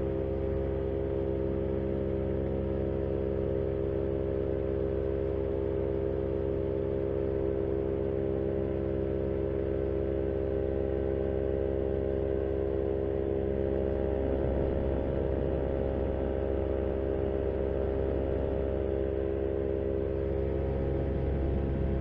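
Paramotor engine and propeller running steadily at cruise power in flight: an even drone with a low wind rumble on the microphone that gets a little stronger about two-thirds of the way through.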